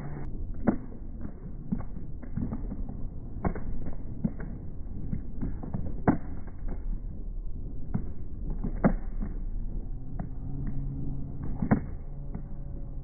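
Street sound recorded with slow-motion video, slowed and pitched down into a low rumble, with sharp knocks about every three seconds and fainter ones between.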